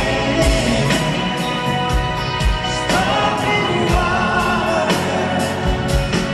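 Live rock band playing a slow ballad, with a raspy male lead voice and female backing singers singing over a steady drum beat.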